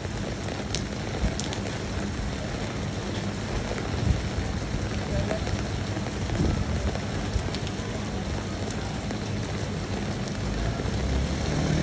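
Steady rain falling, with a few sharp drops ticking now and then.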